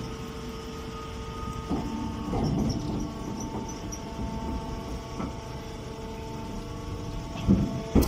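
Stationary straw square baler running: a steady machine hum with several steady tones, broken by a few knocks, the loudest two sharp ones near the end.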